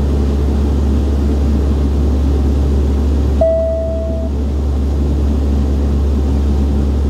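Steady low drone of a De Havilland Canada Dash 8-Q300's turboprop engines and propellers, heard inside the cabin in flight. About three and a half seconds in, a single cabin chime sounds for under a second.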